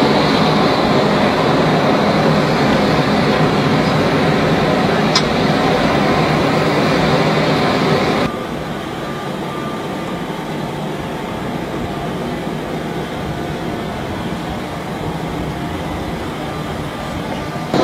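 Steady rushing jet aircraft engine noise, which drops to a somewhat lower level about eight seconds in. A brief faint click comes about five seconds in.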